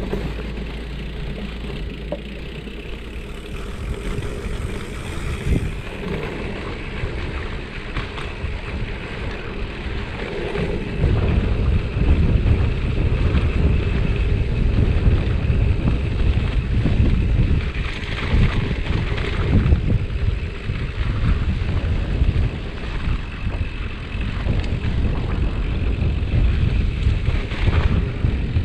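Wind buffeting the microphone of a riding bicycle, with the tyres rumbling over a rough concrete path. The low rumble grows louder and more gusty about eleven seconds in.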